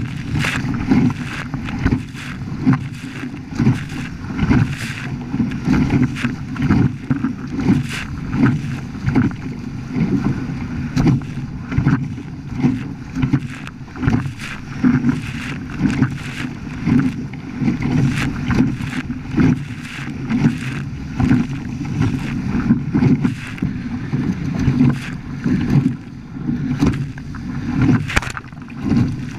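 A Hobie Cat 14 catamaran under sail: water rushing and splashing against the hulls in irregular surges, with wind buffeting the microphone.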